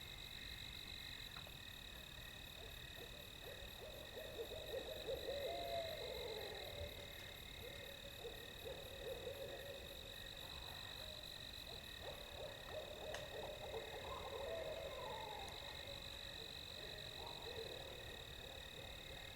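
Distant barred owls calling: a run of wavering hoots and cackling calls that starts about four seconds in and carries on to the end. Under them runs a steady high-pitched night insect chorus.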